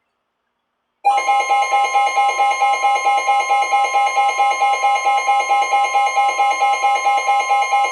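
Electronic emergency weather alert tone starting about a second in, beeping in a fast, even pulse of about four or five beats a second: the attention signal for a flash flood warning.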